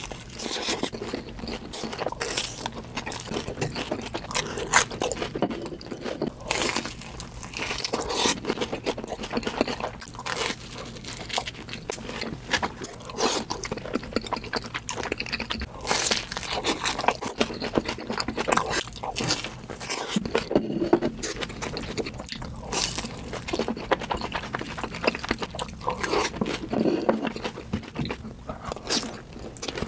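A person biting into and chewing a corn dog, with repeated crunching of the fried batter and irregular, crackly chewing throughout.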